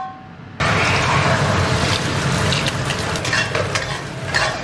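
Eggs frying in hot oil in a wok, sizzling loudly. The sizzle starts suddenly about half a second in, with a metal spatula scraping and knocking against the wok as the eggs are stirred.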